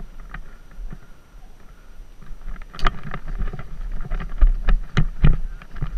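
Wind buffeting the microphone of a helmet-mounted action camera on a lacrosse player, a steady low rumble. From about three seconds in comes a run of sharp knocks and clatter.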